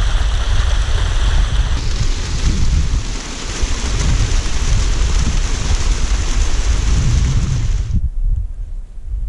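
Small mountain stream running and splashing down a rock slab, a steady rushing hiss, with wind buffeting the microphone as a low rumble. The water sound cuts off about eight seconds in, leaving only the wind rumble.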